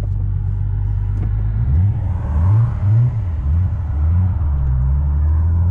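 Turbocharged V6 engine of a VW Bora heard from inside the cabin, running with a low drone. About two seconds in, the engine note rises and falls a few times, then settles back to a steady low hum.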